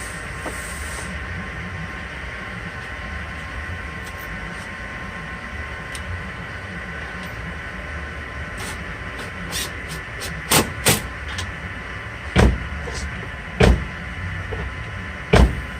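Replacement outside door handle being fitted into a Nissan Versa door: a run of sharp plastic and metal clicks and knocks over a steady background hum. The clicks come in the second half, with about five loud ones close together near the end.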